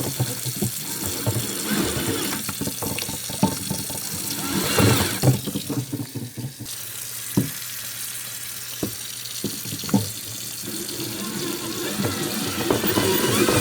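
Water running from a tap onto a glazed ceramic pot, a steady wash with scattered knocks as the pot and drill are handled. The water is cooling the drilling spot and carrying out the ceramic slurry.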